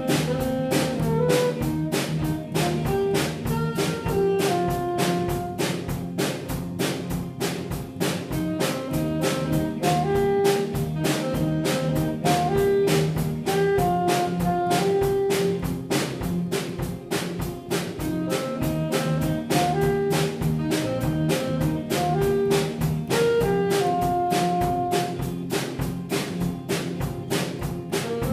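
A small student band playing an instrumental piece live: a saxophone carries the melody in held and stepping notes over electric guitar, bass guitar and a drum kit keeping a steady beat.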